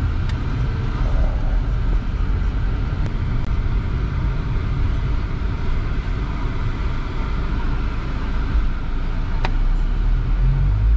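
Steady engine and tyre rumble heard inside the cabin of a Suzuki Vitara driving on a paved road, with a single sharp click about nine seconds in.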